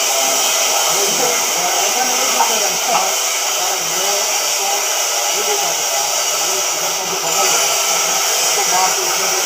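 CNC oxy-fuel cutting torch hissing steadily as it burns through thick steel plate.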